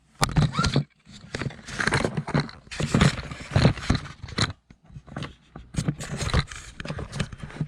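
Plastic toy kitchen pieces being handled by hand, with irregular scraping and rustling.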